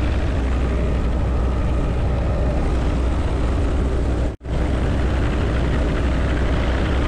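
Helicopter in flight heard from inside its open-door cabin: a steady low rotor drone under a dense rush of engine and wind noise. The sound cuts out for an instant about four seconds in.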